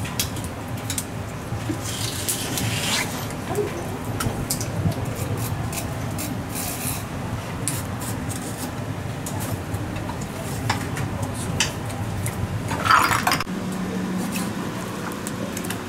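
Knife clicks and scrapes on a wooden cutting board as eels are filleted, over a steady low kitchen hum. A few short hissing bursts come through, the loudest near the end.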